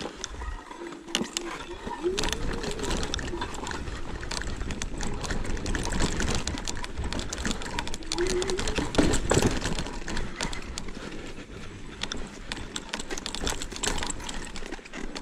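Joyor Y6S electric scooter ridden over a bumpy sandy forest track: a steady clatter of rattles and knocks from the frame and handlebar-mounted accessories over the rough ground, with low wind rumble on the microphone and a few short whines from the electric motor, one rising near the end.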